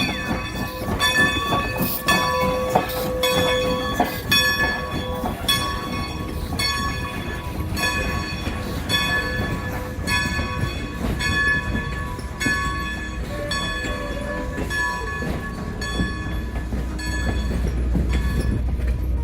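A locomotive bell ringing steadily, strike after strike, over the rumble of a train on the rails. The low rumble grows louder near the end.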